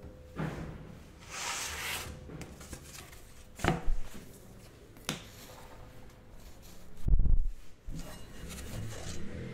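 Workshop handling sounds: a wooden board knocked down onto a pottery banding wheel, a few lighter knocks and a rustle, and a heavy dull thump about seven seconds in. Near the end comes canvas cloth rubbing over the wheel.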